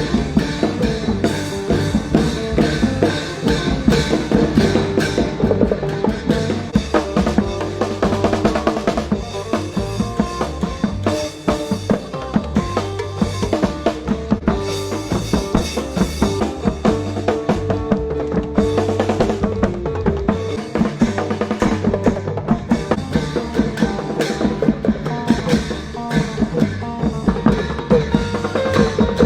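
Music with a steady drum-kit beat: bass drum and snare under pitched instruments.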